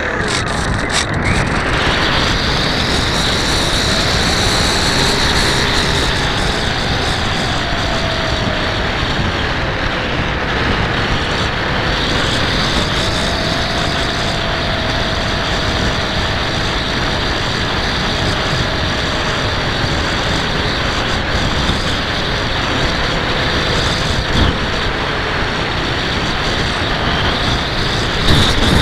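Electric motor and propeller of an AXN Floater RC plane in flight, a thin whine that slowly rises and falls in pitch as it flies around. Heavy wind noise on the microphone runs underneath throughout.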